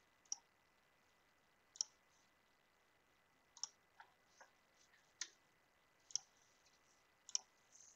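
Faint computer mouse clicks, about eight single clicks at uneven intervals.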